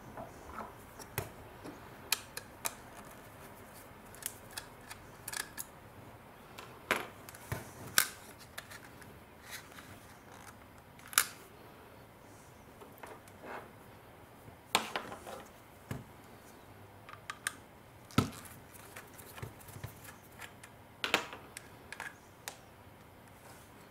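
Irregular small clicks, taps and clacks of a Canon PowerShot G12 compact camera's body and parts being handled and pried apart during disassembly, with a few louder clacks spread through.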